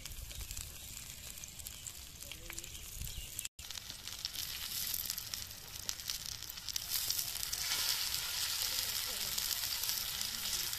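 Paneer tikka skewers frying in oil on a flat metal griddle (tawa): a steady hissing sizzle with fine crackles. There is a brief dropout about three and a half seconds in, after which the sizzle grows louder.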